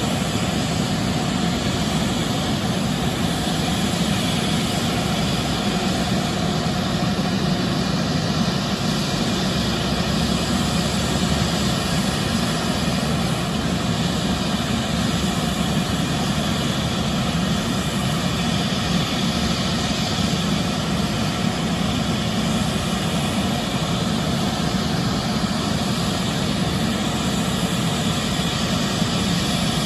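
Sikorsky S-76C's twin Turbomeca Arriel 2S2 turboshaft engines running on the ground with the rotors turning: a loud, steady turbine and rotor noise that does not rise or fall.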